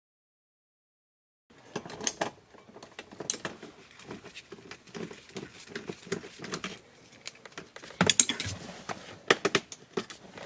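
Small metallic clicks and rattles from hand tools working a dashboard retaining bolt loose. The clicks come a few a second, with a cluster of sharper clicks near the end.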